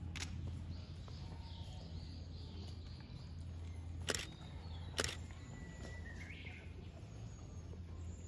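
Outdoor ambience: a steady low hum with small birds chirping, and two sharp clicks about a second apart around the middle.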